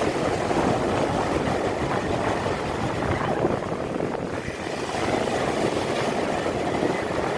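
Sea surf rushing with wind noise, swelling twice.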